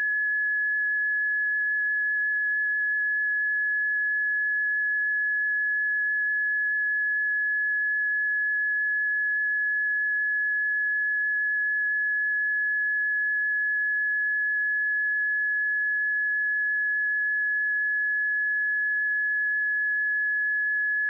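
Seismic early-warning monitor tone: a single steady electronic tone that holds one pitch without a break. The tone does not change, which on this alert signals that no earthquake or eruption is being flagged.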